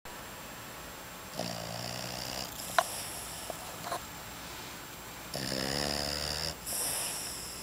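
Boston terrier, a short-nosed breed, snoring in its sleep: two loud, buzzing snores about four seconds apart, each followed by a breathy hiss. A short sharp click comes shortly after the first snore.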